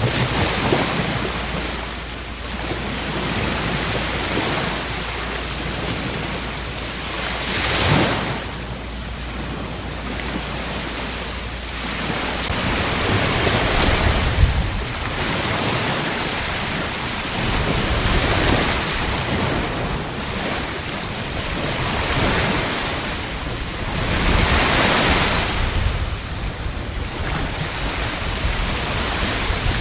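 Ocean surf: waves breaking and washing in, the rushing noise rising and falling every several seconds, with wind.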